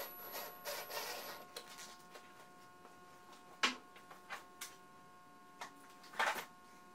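Cordless impact driver running in a short burst of about a second and a half, driving a screw into a brass piano hinge, followed by a few scattered sharp clicks and knocks, the loudest about three and a half seconds in and a quick cluster near the end.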